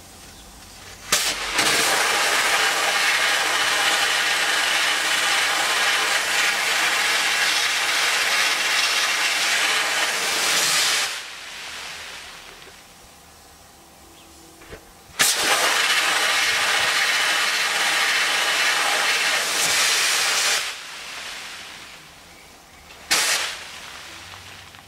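Pressure sandblaster blasting abrasive through its hose nozzle onto a steel moped frame: a loud, even hiss in two long blasts of about ten and five seconds, each starting with a sharp burst, then a short blast near the end.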